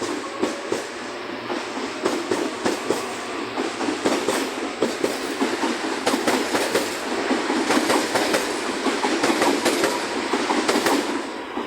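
Series 7000 electric multiple unit pulling out of a station, its wheels clacking over rail joints in a quickening rhythm as it gathers speed, getting louder as it passes.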